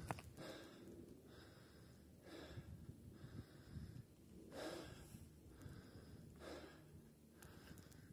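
A person breathing heavily close to the microphone, faint, with a breath about every two seconds.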